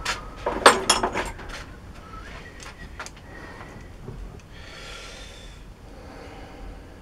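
Metal tools or parts being handled on a lathe: a quick run of clinks and rattles about a second in, then a brief scrape a little past the middle.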